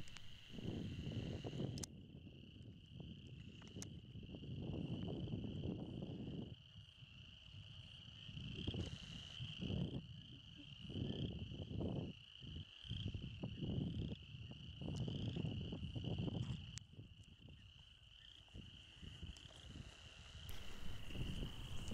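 Steady high-pitched evening chorus of small calling animals, insects such as crickets and frogs, from the wetland, under irregular low rumbles that come and go.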